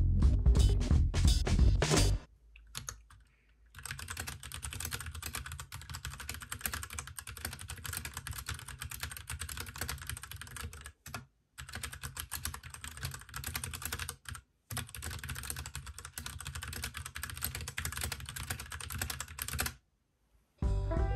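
Fast typing on a mechanical keyboard: a dense stream of key clacks with two brief pauses, following a couple of seconds of music with a heavy beat.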